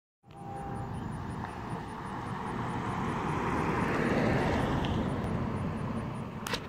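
Low rushing noise of a passing vehicle, swelling to a peak about four seconds in and then easing off.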